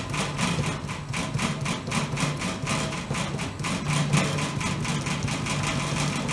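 Metal spatulas chopping and scraping rapidly on the frozen steel pan of a fried ice cream machine, several strokes a second, over the steady hum of the machine's refrigeration compressor.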